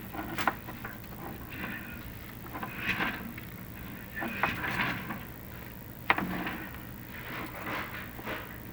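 Irregular scraping and rubbing from a chimney inspection camera moving inside a clay-tile flue. There are sharp knocks about half a second in and again about six seconds in.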